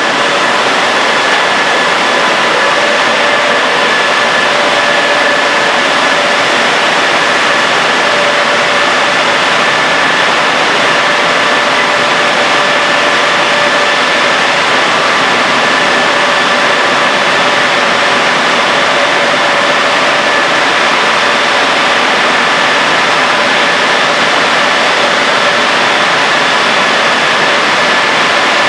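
Ceccato automatic car wash tunnel running: spinning wash brushes, water spray and machine motors together make a loud, steady rushing noise with a faint steady whine in it.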